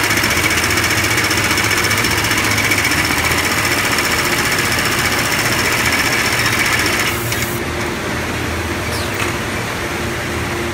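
Keestar LoopSEW65 automatic FIBC loop-attaching sewing machine stitching a webbing loop onto woven big-bag fabric with a fast, even needle rhythm. About seven seconds in, the stitching stops, leaving a quieter steady machine hum with a couple of faint clicks.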